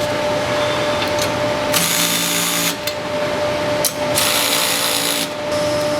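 Cordless power driver running in two bursts of about a second each, spinning nuts tight on the wheelbarrow's bolts.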